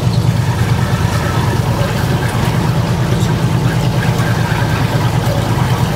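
Boat engine running steadily, a constant low drone over a steady hiss of noise.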